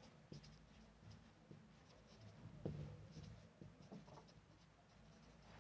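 Marker pen writing on a whiteboard: faint, scattered short strokes and taps, one a little louder about two and a half seconds in.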